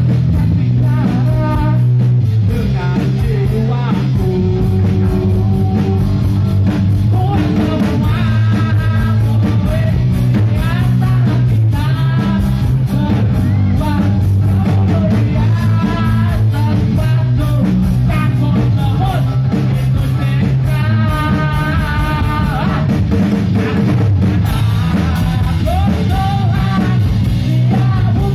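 Live rock band playing through a stage PA: a male singer over electric guitars and a drum kit.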